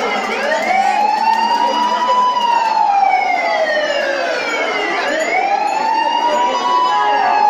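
A siren wailing in slow rises and falls, climbing, sinking back and climbing again about five seconds later, over a background of noise.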